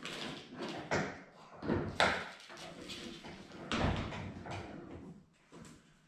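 Irregular knocks, bumps and scraping of a plastic windshield panel being handled and fitted against a UTV's cab frame; the loudest knocks come about two and four seconds in.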